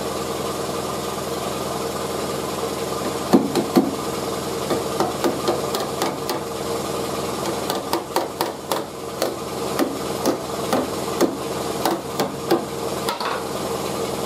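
A hammer tapping the rust-holed steel edge of a fender's wheel arch, knocking the rusted area down below the original surface: a run of sharp, irregular taps starting about three seconds in, over a steady machine hum.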